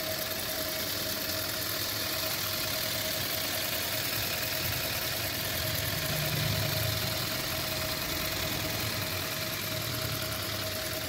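Maruti Suzuki Swift engine idling steadily, with a constant whine running through it.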